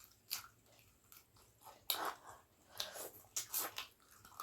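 A person chewing and biting pork on the bone, close to the microphone: irregular wet smacks and crunches, a few clustered near the middle and later on.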